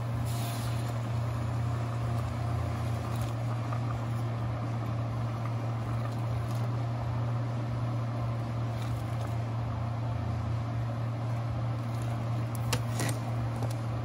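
A steady low hum over the hiss and bubble of pots boiling on the stove, with a few light clinks of a utensil against a pot near the end.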